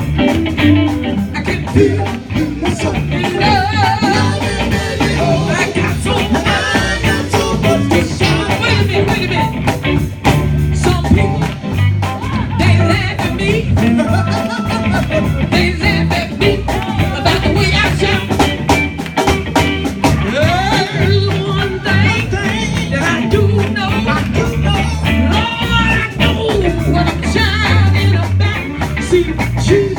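Gospel song performed by a band and singers, with a steady beat and a strong bass line running under the voices.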